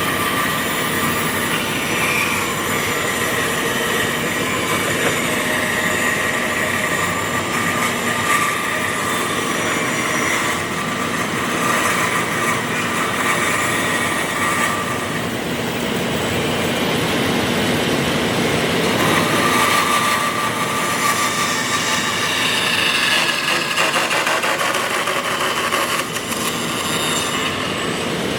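A woodworking power machine running continuously: a loud, steady noisy whir with a faint wavering whine.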